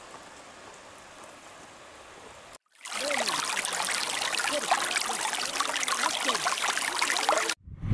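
Shallow snowmelt stream trickling and gurgling over stones and algae, heard close up. It starts suddenly about two and a half seconds in, after a faint steady hiss, and cuts off just before the end.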